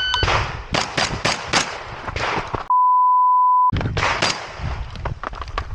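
A shot timer's start beep, then a rapid string of gunshots, several a second. About two and a half seconds in, all sound is replaced by a one-second 1 kHz censor bleep, after which the rapid firing continues.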